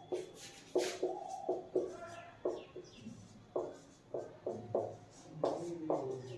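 Felt-tip marker writing on a whiteboard: short squeaking strokes, a few each second, as words are written out.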